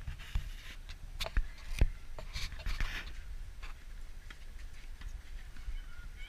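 Tennis balls being struck in a rally: a few sharp knocks of ball on racquet and court in the first two seconds or so, over a low steady rumble.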